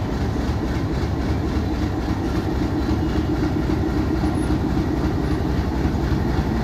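Train running on the rails: a steady rumble of wheels and carriages with a light clatter and a low hum.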